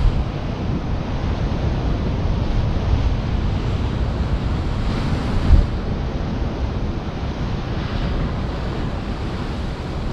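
Sea surf washing in steadily, with wind rumbling on the microphone.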